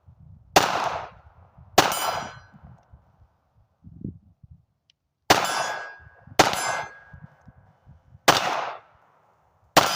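Six suppressed pistol shots, unevenly spaced, each followed by the clang and short ring of a struck steel target.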